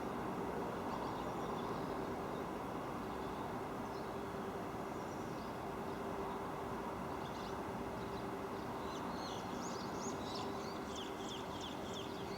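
Barn swallows twittering in short, high chirps. A few scattered chirps are followed, about nine seconds in, by a rapid burst of them lasting a few seconds. A steady background rumble with a low hum runs underneath.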